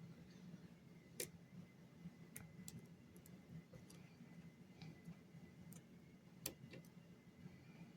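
Faint, irregular clicks of a lock pick working the pin stacks of the Furst lock, the two loudest about a second in and near six and a half seconds in.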